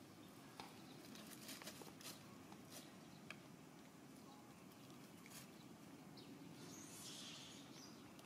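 Near silence: faint outdoor ambience with a few soft ticks and crackles scattered through it, and a brief faint hiss about seven seconds in.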